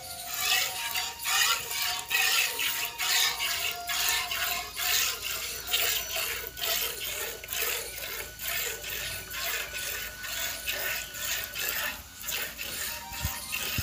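A cow being milked by hand: short hissing squirts of milk, repeated in an even rhythm of about two to three a second.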